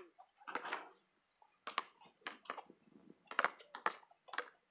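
Basketball bouncing on an asphalt court: a scatter of short, sharp knocks at an irregular pace.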